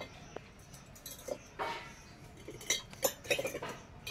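Small stainless steel pot clinking and scraping on a concrete floor as a monkey handles it, in a few scattered light knocks and short scrapes.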